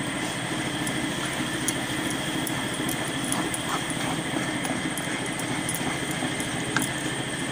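Ground maize paste roasting in a kadhai on a gas stove, giving a steady noise, with a few light clicks and scrapes from the wooden spatula as it is stirred.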